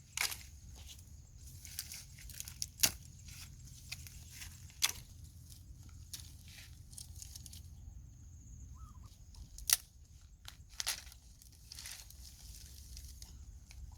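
Food being prepared by hand: irregular sharp clicks and knocks with some tearing and rustling, the loudest about three and ten seconds in, over a faint low hum.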